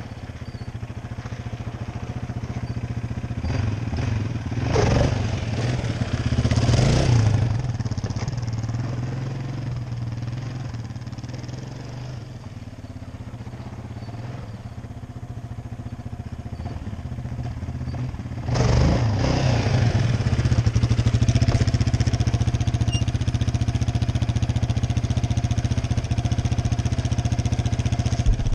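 Yamaha Raptor 700R ATV's single-cylinder four-stroke engine running steadily, revved up twice about five and seven seconds in, then jumping to a louder, sustained run about eighteen seconds in.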